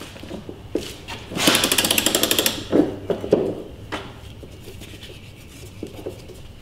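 Socket ratchet clicking rapidly for about a second while driving a new blade bolt on the mower deck, followed by a few separate metal knocks.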